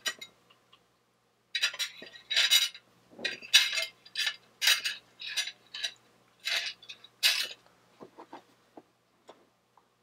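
Metal forks scraping and clinking against a plate in a run of about a dozen short strokes, followed by a few fainter, duller knocks near the end.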